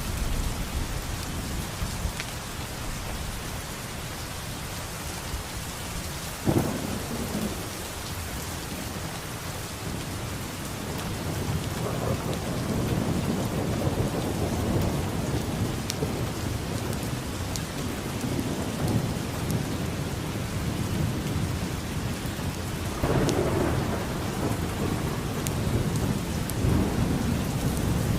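Thunderstorm: steady heavy rain falling, with thunder. A sharp crack comes about six and a half seconds in, long low rolling rumbles build from about eleven seconds, and another clap and rumble follows at about twenty-three seconds.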